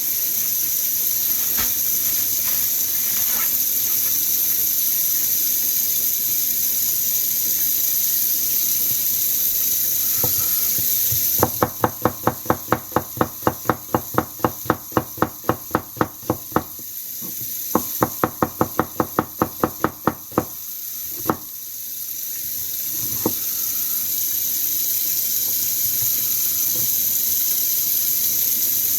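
Kitchen knife chopping an onion on a cutting board: quick, even strokes about four or five a second, in two runs of several seconds in the middle, then a few single knocks. A steady hiss runs underneath.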